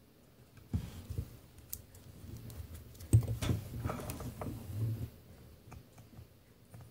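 Small plastic clicks and light knocks as a 1S LiPo whoop battery is handled and fitted at its charger. It is an irregular run of taps lasting a few seconds, loudest about three seconds in, and it dies away near the end.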